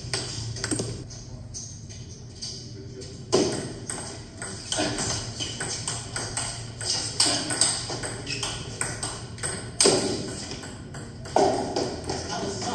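Table tennis balls clicking off paddles and table in irregular, rapid strikes, with a few louder hits about three seconds in and again near the end.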